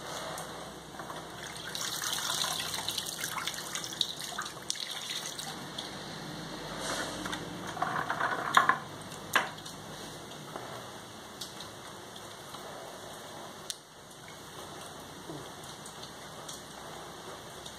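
Gloved hand sloshing and rummaging in a bucket of paint-stripping solution, fishing out soaked miniatures, with a few sharp clicks about eight to nine seconds in. The second half is quieter, with only small ticks and drips.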